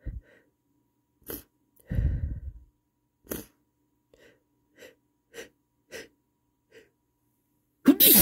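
A man's stifled sneezes: a string of short, muffled bursts held back through closed lips, with a much louder, fuller sneeze breaking through near the end.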